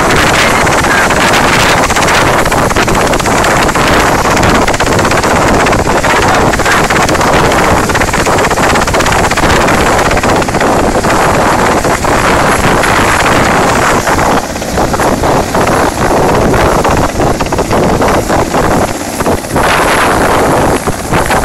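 Mi-17-type military transport helicopter running on the ground with its main rotor turning, a loud, steady turbine and rotor din with rotor wash buffeting the microphone. The noise dips briefly a few times in the last several seconds.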